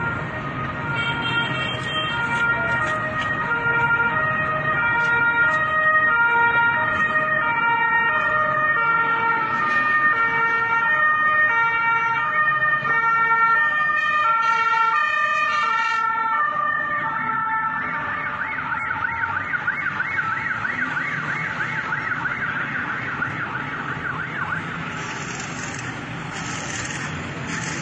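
Emergency vehicle sirens. A two-tone siren alternates between two pitches roughly every half second, then from about 18 seconds in a siren warbles rapidly instead, over a steady low rumble.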